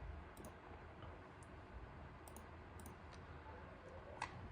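Faint, scattered light clicks, about half a dozen, over quiet room tone.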